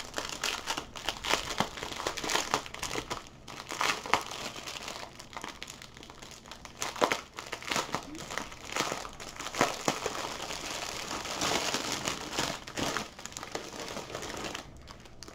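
Clear plastic bags crinkling and rustling as hands turn over and pull apart a diamond painting kit's bagged drills and tools, with irregular crackles and small clicks.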